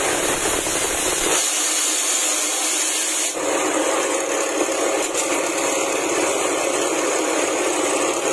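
Grass-and-twig chopper driven by a 6.5 HP petrol engine, running at speed with a steady, loud mechanical din. The sound changes abruptly twice, at about one and a half and three and a half seconds in.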